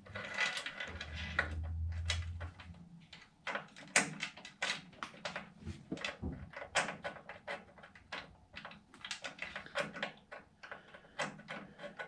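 Irregular clicks, taps and scrapes of a taillight housing, its gasket and bolts being handled and pushed into place against a truck's steel fender.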